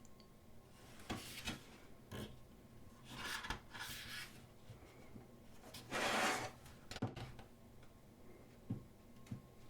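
Thick pages of a photobook being turned and handled, paper sliding and rubbing several times, the longest and loudest about six seconds in, with a few light knocks near the end.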